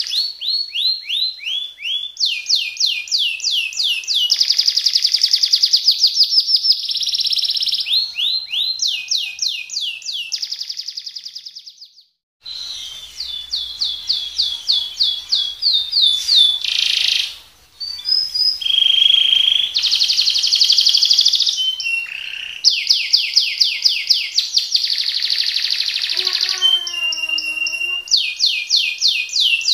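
Domestic canary singing in long, fast rolls: runs of rapidly repeated high notes, each phrase holding or stepping to a new pitch, with a brief break about twelve seconds in.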